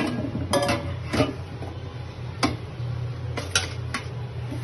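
Several sharp clicks and light clinks of steel kitchenware being handled at a stainless-steel sink, spaced irregularly, a few ringing briefly, over a steady low hum.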